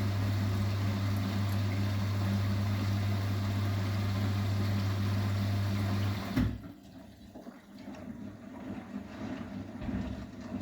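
Vestel CMI 97302 washing machine humming steadily with water rushing through it. The hum cuts off with a thump about six seconds in, leaving fainter uneven sounds.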